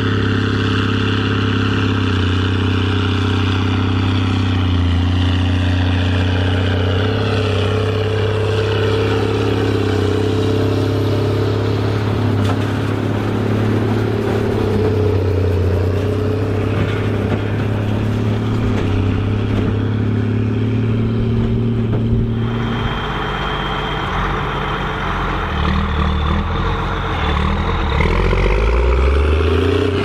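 Case 2294 tractor's turbocharged six-cylinder diesel running steadily under load while pulling a large square baler, with the baler's mechanical clatter alongside. About 22 seconds in the sound changes abruptly, and near the end the tractor's engine revs up.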